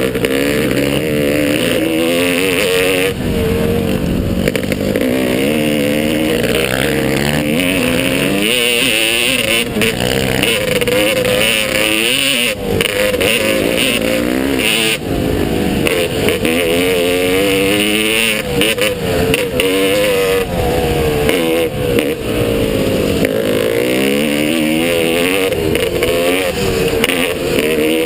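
Motocross bike engine revving up and down over and over as it is ridden, its pitch climbing and dropping every second or two, with a rushing noise behind it.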